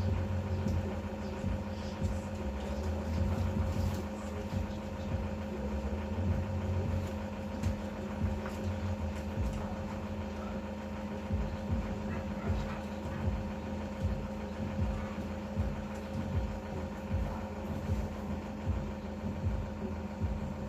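Delivery van's engine idling: a steady hum over a low rumble that stays level throughout.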